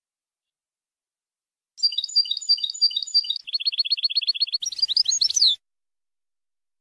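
European goldfinch singing a phrase of Shami-style song. It begins with a run of repeated sharp notes, goes into a fast trill of about ten notes a second, and ends in a few quick rising and falling notes. The phrase starts about two seconds in and stops sharply.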